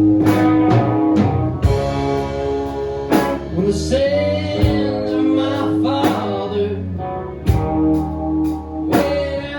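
Band playing a blues song: electric guitar, bass and drum kit, with regular drum hits and bending guitar notes.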